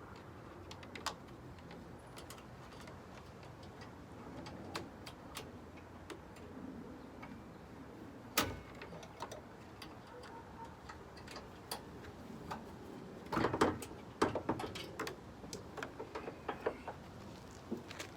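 Scattered clicks, taps and scrapes of a stiff steel rod being worked through a Dodge Durango's front grille against the hood latch. There is a sharper knock about eight seconds in and a run of knocks around thirteen to fifteen seconds.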